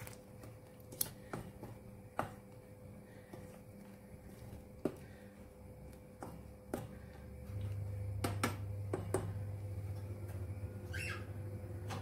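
Wooden spoon stirring diced apples in sugar syrup in a stainless steel saucepan, with scattered light knocks of the spoon against the pot. A low steady hum comes in a little past halfway and carries on.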